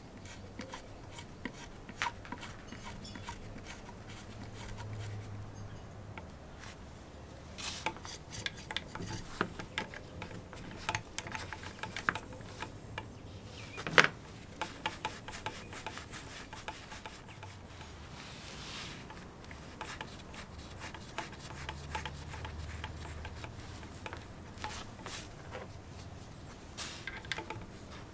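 Steel keyed drill chuck handled and turned by gloved hands: glove-on-metal rubbing and small scattered metallic clicks from the chuck sleeve and jaws, with one sharp click about halfway through.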